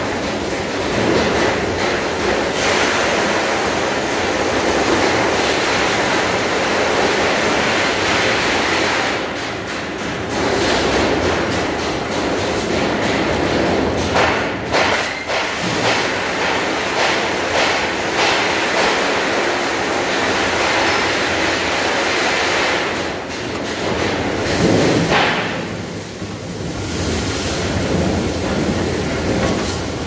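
CNC steel-plate cutting machine running through a cut, a loud steady hiss and rumble that dips briefly a few times.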